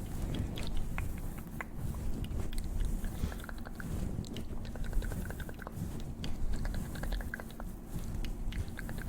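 Close-miked ASMR mouth sounds: a steady stream of small wet clicks and smacks, with short runs of rapid ticking.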